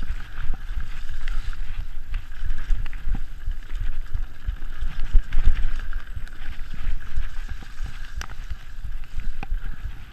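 Mountain bike riding fast down a dirt forest singletrack, heard from a camera mounted on the rider: a low, uneven rumble of wind and tyres on the trail, with scattered knocks and rattles from the bike over the ground, one sharp knock late on.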